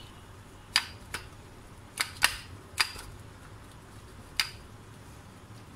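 Stainless-steel rolling pin rolling out pie dough, giving six sharp clicks and knocks at uneven intervals over a faint steady hum.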